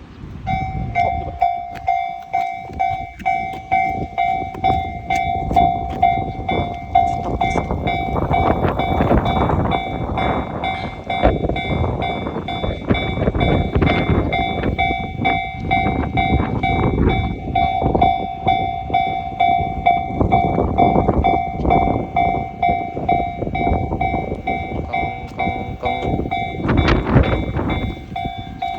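Japanese railway level-crossing bell starting to ring about half a second in and ringing on with a steady, repeating clang, while a train runs through the crossing with loud rumbling and rhythmic wheel clatter.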